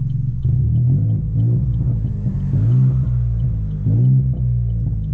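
Chevrolet Onix 1.0 turbo three-cylinder engine with downpipe and sport exhaust pulling under acceleration. Its drone rises and falls in pitch several times, with brief drops in loudness late on as it shifts or lifts off. A faint, regular ticking, about three a second, runs underneath.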